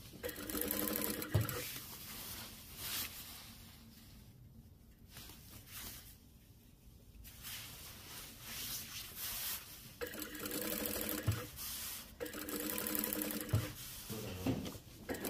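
An industrial lockstitch sewing machine stitches a long padded jacket along its zipper. It runs in short bursts, stopping and starting several times, with a quieter pause of a few seconds in the middle.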